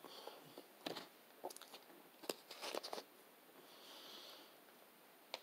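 Faint scattered clicks and crackles of a plastic water bottle being picked up and handled, then a soft hiss about four seconds in.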